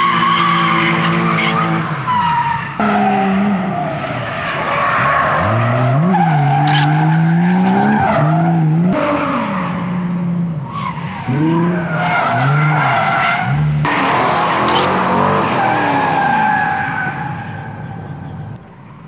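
Drift car engine revving hard, its pitch swinging up and down as the throttle is worked through the slide, over the screech of tyres skidding. It fades away near the end.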